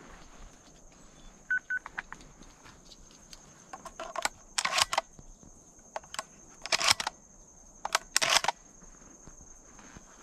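Clicks and short bursts of rustling, with two brief beeps about one and a half seconds in, over a thin steady high-pitched tone.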